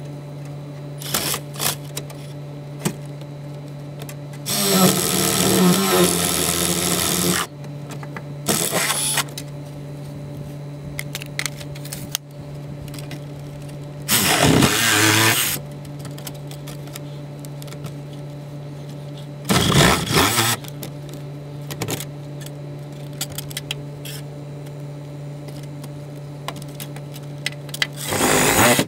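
Cordless drill run in five bursts up into the wooden underside of a camper's floor framing. The longest burst lasts about three seconds, and one near the middle falls in pitch as the drill slows. A steady low hum runs underneath throughout.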